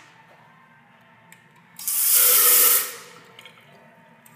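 Restroom sink faucet with lever handles turned on, water running into the basin for about a second before it is shut off. It is turned on again near the end.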